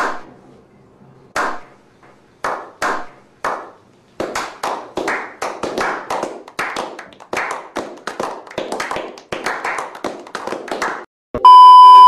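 A slow clap by a small group of men: a few single claps a second or so apart, then quicker, steady clapping at about three claps a second. Near the end this is followed by a loud, steady test-tone beep that goes with a TV colour-bar screen.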